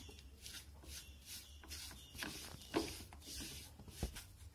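Wooden spatula scraping and pushing besan roasted in ghee around a nonstick pan, in repeated faint strokes, with a light knock about four seconds in. The besan is nearly roasted, softened and releasing its ghee.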